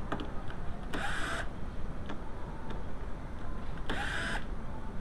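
Small cordless power tool whirring in two short bursts, about a second in and near the end, as it spins out the door module's T30 Torx bolts.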